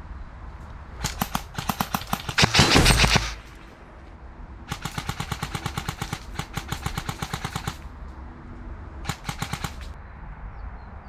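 Airsoft electric guns firing full-auto bursts of rapid cracks: a first burst about a second in that turns much louder and denser toward its end, a longer burst of about three seconds in the middle, and a short burst near the end.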